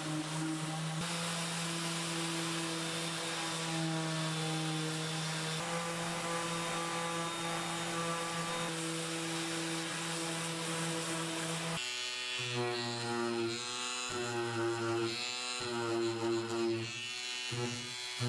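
Electric sanders running against bare wood with a steady motor tone and sanding hiss: a random orbital sander on the flat top. After a cut about two-thirds of the way in, a sander with a triangular pad works a turned leg, its pitch wavering and dipping repeatedly.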